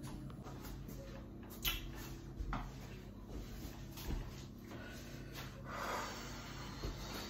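Faint scattered rustles and light knocks of bags and household items being handled during unpacking.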